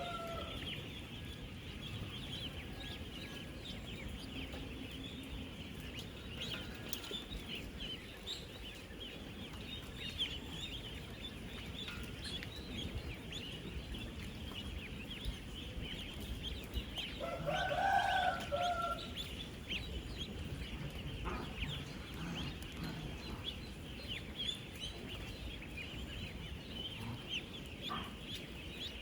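A large flock of ten-day-old ducklings peeping continuously in a dense chorus of short, high chirps. A little past halfway, one louder, lower drawn-out call from another bird rises above the chorus for about a second and a half.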